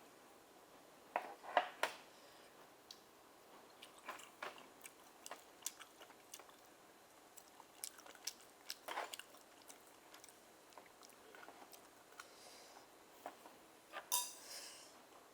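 Close-miked chewing and wet mouth sounds of someone eating steamed oysters: scattered soft clicks and smacks, with louder bursts a little after a second in, around nine seconds, and near the end.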